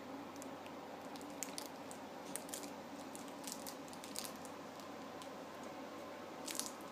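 A small pet chewing food: faint, irregular crunching clicks, several per second at times, over a steady low room hum.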